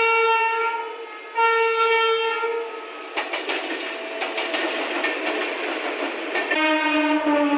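Indian Railways electric locomotive sounding its horn in two long blasts as it approaches, followed by the clatter and rattle of the locomotive and coaches passing close by. A lower horn note starts near the end.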